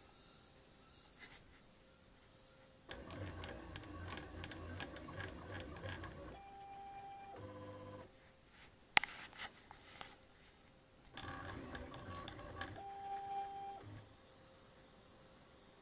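Stepper motors of a MostlyPrintedCNC pen plotter whirring in bursts as the gantry moves and draws, with a steady whine during some moves and short pauses between them. Two sharp clicks about nine seconds in are the loudest sounds.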